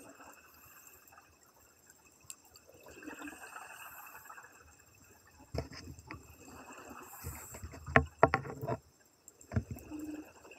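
Scuba regulator breathing recorded underwater: a hissing inhale, then exhaled bubbles burbling and rumbling with sharp clicks, loudest about eight seconds in. The footage is sped up to double speed.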